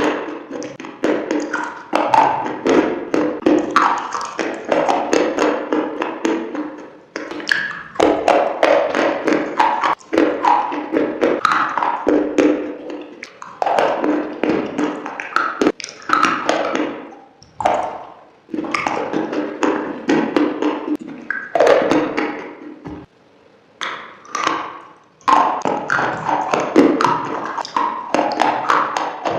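Close-miked crunching and chewing of crisp food, dense crackles and clicks in bouts with brief pauses between bites.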